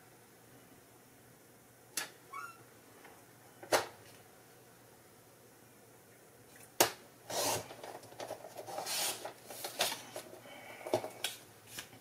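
Paper trimmer cutting designer paper: a few sharp clicks of the sliding blade carriage, then a scrape and irregular rustling of the paper for several seconds as the cut pieces are handled.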